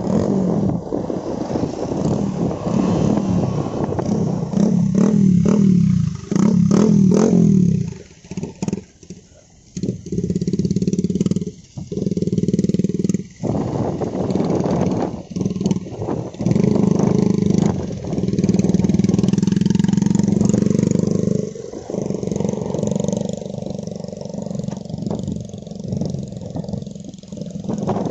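Motorcycles and scooters, a Yamaha R15 V3 among them, riding past one after another, their engines swelling and fading as each goes by. The sound breaks off suddenly a few times near the middle.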